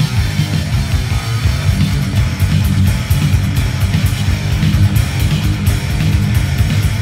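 Heavy metal song from a 1984 album, with electric guitars, bass and drums playing loudly throughout and rapid, even drum and cymbal hits from about two and a half seconds in.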